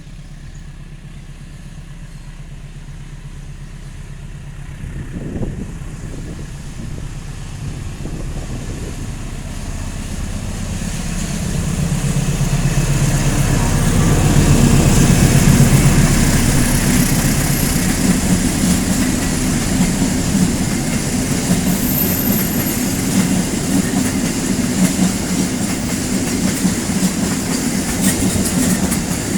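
Train running past, its low engine hum growing louder over the first fifteen seconds and then holding a steady, rougher running noise with wheels clattering on the rails.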